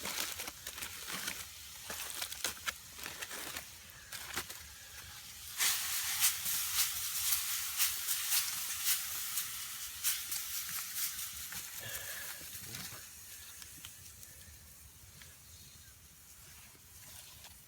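Chicken and vegetables sizzling and crackling in a hot wok. The sizzle jumps much louder about six seconds in, then slowly dies down.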